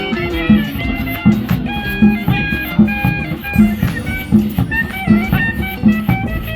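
Music with a steady drum beat under a melody of held, sliding notes, like a wind instrument.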